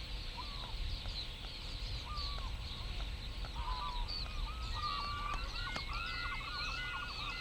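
A large flock of shorebirds calling, with many short overlapping chirps that grow denser from about four seconds in.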